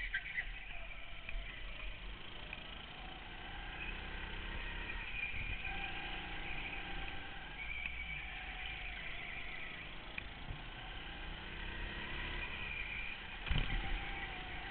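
Go-kart engine running under the driver, its pitch rising and falling with the throttle through the corners. A sharp thump near the end is the loudest sound.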